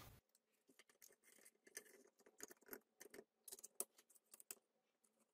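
Near silence broken by a handful of faint, light clicks and taps from handling the opened switching power supply's circuit board and metal case.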